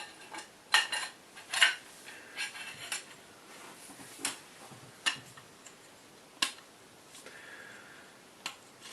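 Light clicks and clinks of small airsoft rifle parts being handled and fitted together during hop-up reassembly. A quick cluster of clicks in the first three seconds, then single clicks every second or two.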